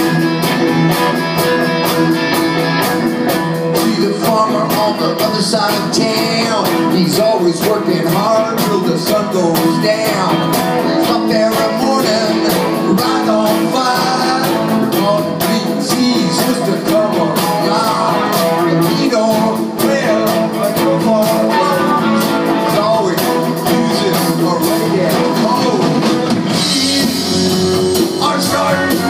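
Live rock band playing loudly and steadily, with electric guitar to the fore and a wavering melodic line from a voice or lead guitar.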